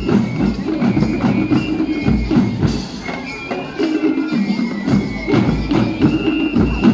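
Sri Lankan Eastern band playing: traditional drums keep a steady beat under jingling cymbal strokes and a high held melody line. The low drum beat drops out for about a second around the middle, then comes back.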